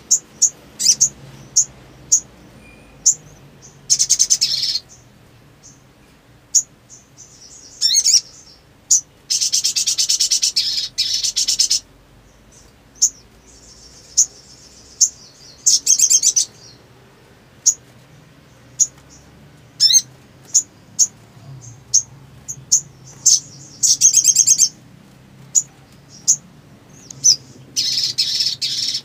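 Sogon (sogok ontong), a sunbird-family songbird, calling: a string of short, high, sharp chips, several a second, broken by rapid trilled bursts. Most bursts last about a second; the longest runs some three seconds, about ten seconds in.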